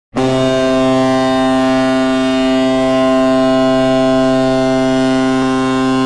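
Hockey goal horn blowing one long, steady blast that starts suddenly right at the beginning.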